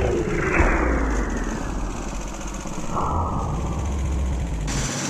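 A slow-down (tape-stop) sound effect on the soundtrack: the whole sound sinks steadily in pitch over several seconds, leaving a deep rumble, and then cuts off abruptly near the end.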